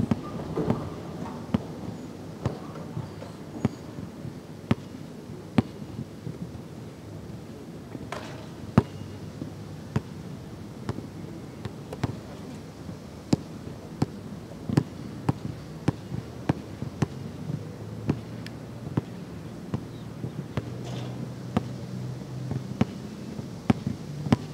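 A basketball bouncing on a hard outdoor court as a player dribbles: a string of sharp, irregularly spaced thuds, about one every half second to a second.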